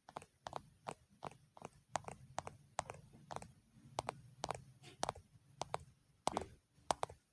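ASMR tapping: a steady series of short, sharp taps on a hard object, about two to three a second.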